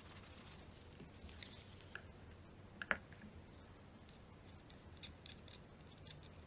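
Faint clicks and light handling noises from a Shimano Sedona spinning reel's rotor and bail parts as they are wiped and greased with a screwdriver tip. One sharper click comes about three seconds in.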